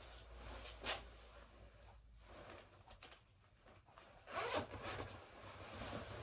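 Zipper of a fleece hoodie being pulled open, the main zip rasp about four and a half seconds in, then fabric rustling as the jacket is slipped off the shoulders.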